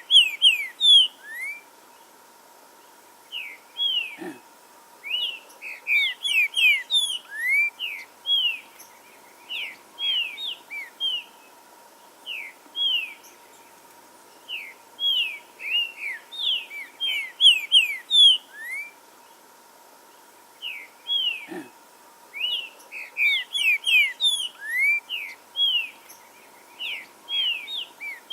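Green-winged saltator (trinca-ferro) singing in repeated bouts of quick, sweeping whistled notes, with short pauses between bouts. A faint steady hum runs underneath.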